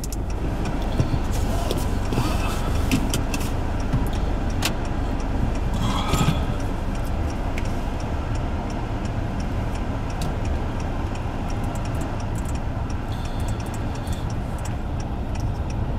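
Steady low rumble of a car on the move, heard from inside the cabin, with a few light clicks.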